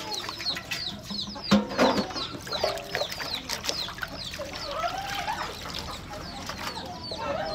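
Chickens clucking and calling, with many short high falling peeps throughout. Under them, water sloshes as hands wash raw pork in a metal basin, with a sharp knock about a second and a half in.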